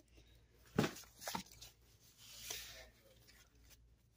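Two light knocks about half a second apart, about a second in, then a soft brief rustle as comic book packaging is handled.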